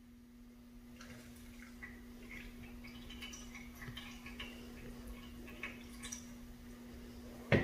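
Water running off a piece of soaked material in a thin stream into a stainless steel bowl: faint, irregular dripping and trickling that starts about a second in.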